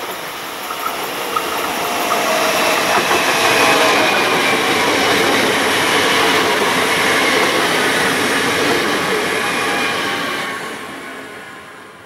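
Siemens Desiro Classic electric multiple unit (OSE class 460) passing close by: a rising rush of wheels on rail with a motor whine that drops slightly in pitch as it goes past, then dies away near the end.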